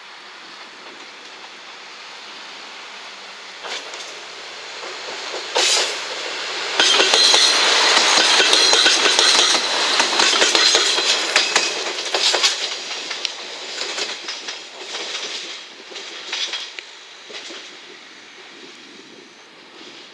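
Two-car KiHa 185 series diesel railcar train passing, its wheels clattering over the rail joints in quick clicks. The sound swells over the first several seconds, is loudest for about five seconds, then fades away.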